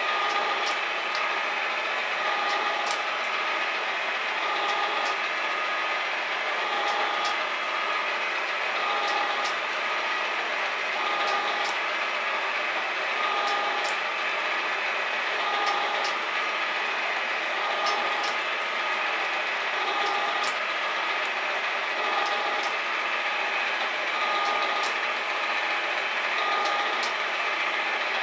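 Metal shaper running steadily, its ram stroking back and forth as the tool takes a heavy cut in a metal block. Short tones repeat about every second and a half, one per stroke, with sharp clicks scattered through.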